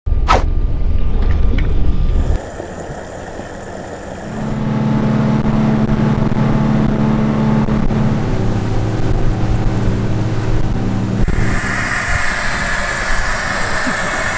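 Twin Yamaha 250 outboard motors running at speed, with wind buffeting and rushing water; the engine note drops lower about eight seconds in. Near the end a steady hiss of gas filling a large balloon takes over.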